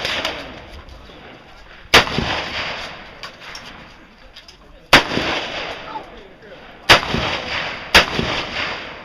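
Four gunshots at uneven intervals, the first about two seconds in and the last two close together near the end. Each crack is sharp and followed by an echo that dies away over about a second.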